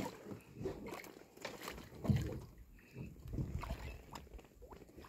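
Water sloshing and splashing around a fyke net being hauled alongside a small boat, with a few dull thumps, the loudest about two seconds in.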